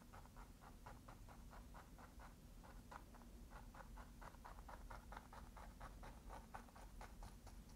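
Faint, rhythmic tapping of a fan brush dabbing paint onto canvas, about four or five light taps a second.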